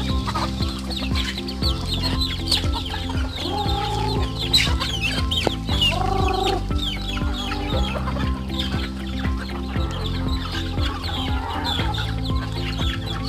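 A flock of native chickens clucking, with many quick short chirps and a couple of longer calls, over background music with steady sustained notes.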